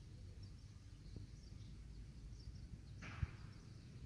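Faint rural outdoor ambience with scattered high chirps in the background, and a brief rustle with a low thump about three seconds in.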